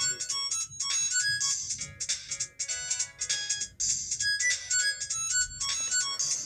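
Alcatel OT-710 mobile phone playing one of its built-in ringtones: a quick melody of short, high notes.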